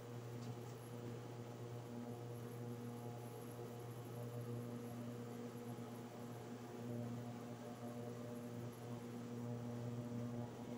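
Induction cooktop running with a lidded pot on it: a steady low electrical hum and buzz.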